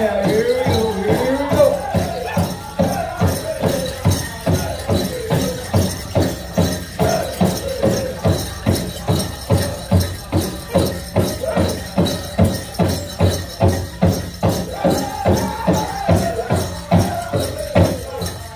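Powwow drum group singing a chicken dance song, several voices in high, falling phrases over the big drum struck steadily about twice a second.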